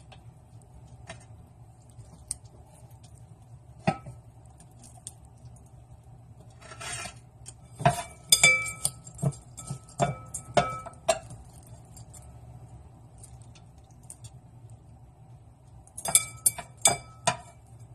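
Clinks and knocks of kitchenware against a roasting pan and plate while a turkey is being stuffed, some of them ringing briefly. There is a single knock about four seconds in, a run of clinks from about eight to eleven seconds, and another run near the end, over a faint steady hum.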